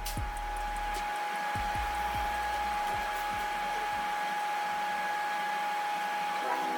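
An electric power tool motor running steadily with a constant high whine, over background music with a beat that fades out partway through.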